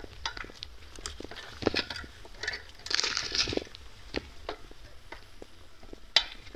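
Footsteps and rustling of a person walking: irregular light taps and crunches, with a longer, louder rustle about three seconds in.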